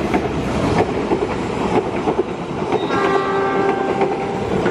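Passenger train passing at speed, its wheels rumbling and clicking over the rail joints, with a locomotive horn blast of about a second starting about three seconds in.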